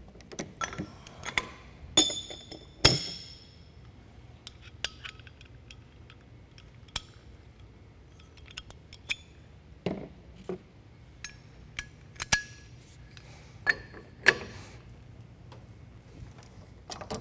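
Hand tools clinking and clanking as a large hub-nut socket and breaker bar are handled: two ringing metal clanks about two and three seconds in, then scattered lighter clicks and knocks, with a few more clanks near the end as the socket goes onto the wheel-end nut.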